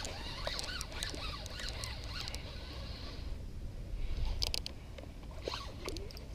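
Daiwa Revros 3000H spinning reel at work as a hooked fish is played, over a low rumble. A short run of high clicks comes about four seconds in.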